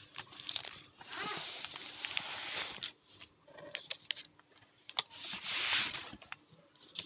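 Paper rustling as a book and notebook are handled and moved, in two stretches of about two seconds each, with small taps and clicks between them.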